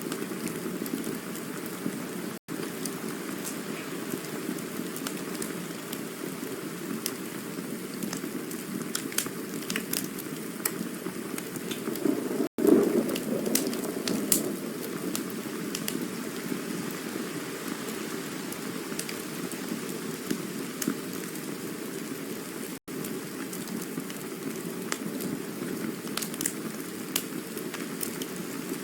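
Campfire burning: a steady low rush with scattered sharp crackles and pops, swelling briefly about twelve seconds in. The sound cuts out for an instant three times, about ten seconds apart.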